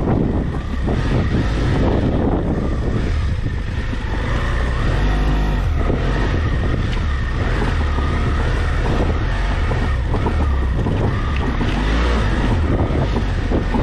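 Wind buffeting the microphone over the steady low running of a BMW F700GS motorcycle's parallel-twin engine at low speed.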